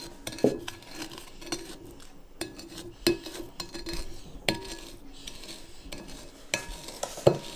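A utensil stirring and scraping egg, sugar and vanilla around a mixing bowl by hand, with irregular clinks and knocks against the bowl.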